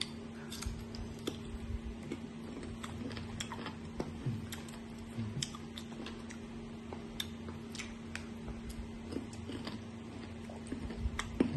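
Chewing of crunchy raw green mango slices: scattered crisp clicks and crunches at an uneven pace, over a steady low hum.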